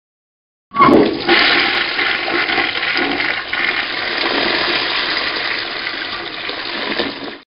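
A toilet flushing: a sudden rush of water about a second in, surging again a moment later, then a steady rushing flow that cuts off abruptly near the end.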